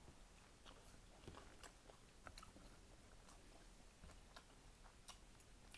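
Faint chewing of a mouthful of cheeseburger, with small scattered mouth clicks.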